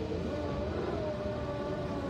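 Hokuriku Railroad 8000-series electric train, a former Keio 3000 series, pulling away on the track: a steady whine that wavers slightly in pitch over a low rumble.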